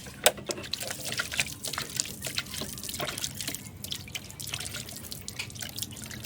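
Liquid dripping and trickling, with many small irregular clicks and taps.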